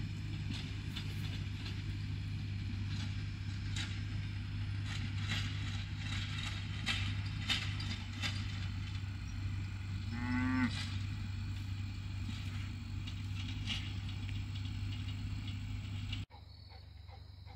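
A cow moos once, briefly, about ten seconds in, over a steady low engine hum and scattered light clicks. Near the end the sound cuts suddenly to a much quieter background.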